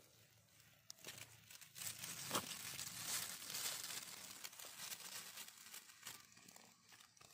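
Dry leaf litter rustling and crackling as a red sand boa crawls through it. The rustling swells a couple of seconds in, with a sharp crackle, then fades.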